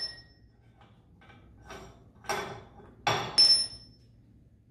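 Steel hand tools and parts clinking and clanking as they are handled and set down: a few light taps, then three sharp metallic clanks about two, three and three and a half seconds in, the last ones with a short ring.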